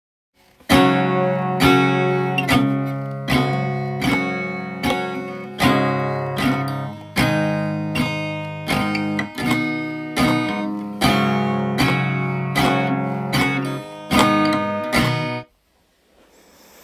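Acoustic guitar strumming chords, about one strum a second, stopping abruptly near the end. The guitar part is one its maker calls completely off.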